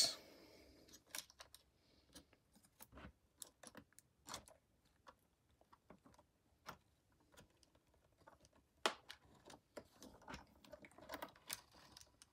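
Faint, scattered clicks and taps of hands handling a 2007 iMac's logic board and its metal frame as the board is worked loose. One sharper click comes about nine seconds in, and the taps grow busier near the end.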